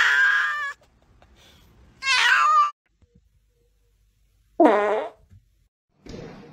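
Cats meowing loudly in three separate cries: a long wavering yowl at the start, a shorter rising meow about two seconds in, and a falling meow about four and a half seconds in.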